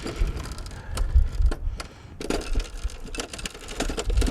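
Irregular metal clinks and knocks, about seven, as the snowblower's axle, chain and washers are shifted by hand to line them up, over a low rumble.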